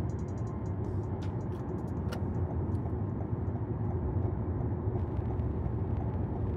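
Car driving on the road: a steady low rumble of engine and tyres, with a faint click or two.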